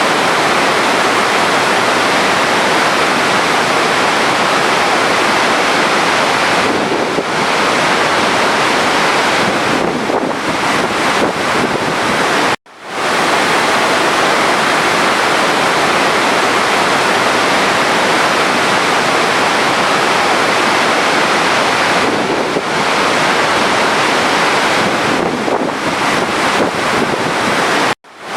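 Steady rushing of running water. It cuts out suddenly twice, about halfway through and near the end, and fades straight back in, where the recording loops.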